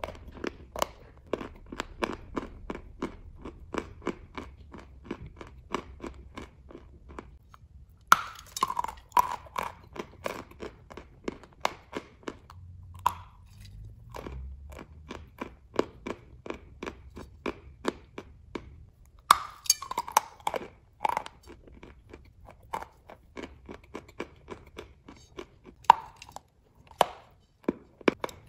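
A person biting and chewing chunks of chalk, with a steady run of crisp crunches about two to three a second. A few louder, sharper bites snap off new pieces: one about eight seconds in, one around nineteen seconds, and two close together near the end.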